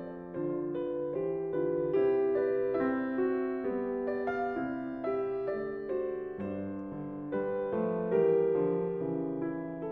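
Piano music: a simple melody of notes changing at an even pace.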